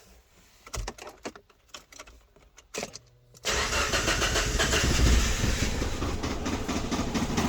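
Subaru Impreza's flat-four boxer engine starts suddenly about halfway through, after a few faint clicks, and keeps running at idle. It misfires on cylinders 1 and 3, so it runs rough.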